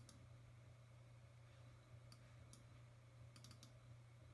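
Faint clicks of a computer's pointing device: one at the start, two a little after two seconds and a quick run of about four near three and a half seconds, over a low steady hum.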